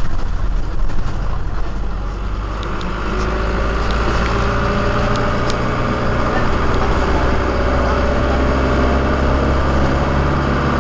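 Engine and road noise heard from inside a moving passenger vehicle: a steady low drone, with the engine's tones coming through more clearly from about two seconds in.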